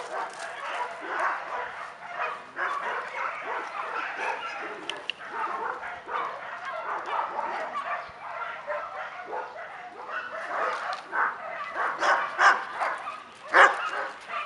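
Several dogs barking and yipping as they play, with the loudest barks coming in a cluster near the end.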